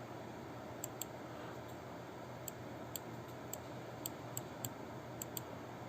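Computer mouse clicking: about ten short sharp clicks, some in quick pairs, over a faint steady low hum.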